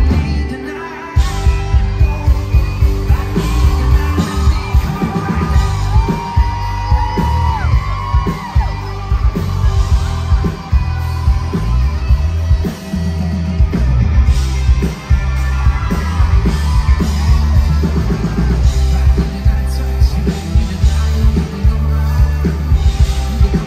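Live country band playing loud through an outdoor PA, heard from within the crowd: a heavy, pounding kick drum and bass under electric and acoustic guitars, with singing. The low end drops out for about a second near the start before the beat comes back in.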